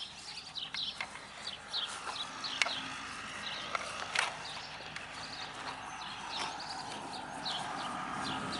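Footsteps on dry grass, with a few sharp knocks, while small birds chirp repeatedly in the background.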